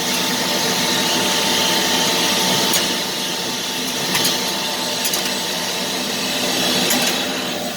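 Vacuum cleaner running steadily, cleaning a furnace fan motor, with a few light knocks along the way.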